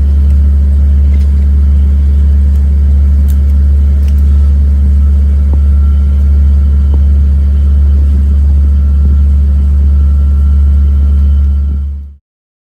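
A loud, steady low rumbling drone with a few faint clicks over it, cutting off abruptly about twelve seconds in.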